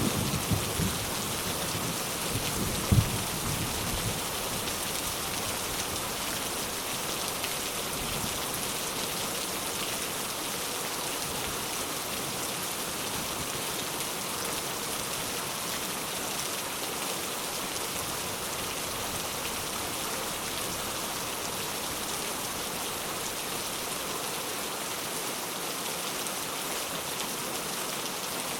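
Steady rain falling, an even hiss throughout. In the first few seconds the tail of a low thunder rumble runs under it, with one sharp clap of thunder about three seconds in, then only rain.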